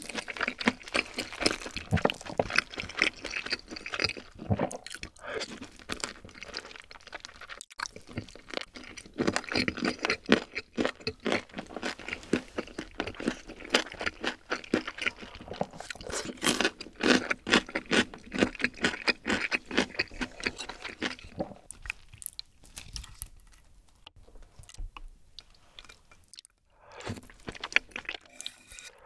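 Close-miked mukbang eating sounds: wet chewing and crunching of grilled chicken, in quick dense clicks. The chewing thins out for several seconds, then a slurp of saucy rosé tteokbokki noodles comes near the end.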